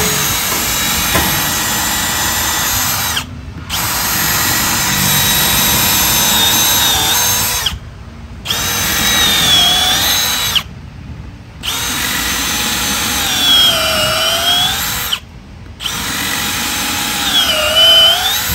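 Milwaukee M12 cordless drill running a twist bit into a block of wood in five bursts with short pauses between them. Its motor whine dips in pitch and recovers as the bit bites in and the load rises.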